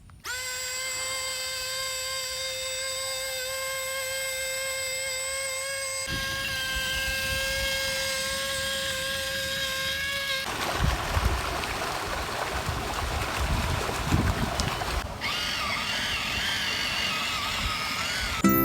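Mini tractor's small motor whining at a steady high pitch; about six seconds in a low rumble joins it. From about ten seconds in the whine gives way to a rough, uneven rumble and rattle, with a wavering whine coming back near the end.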